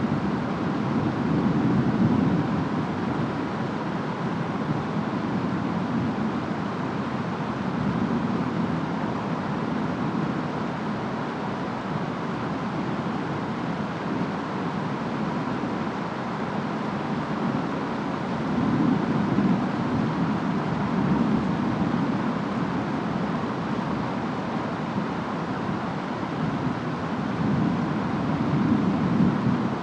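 Steady rainstorm ambience: a continuous wash of rain and wind with a deep rumble underneath. The rumble swells up a few times: about two seconds in, around twenty seconds in, and near the end.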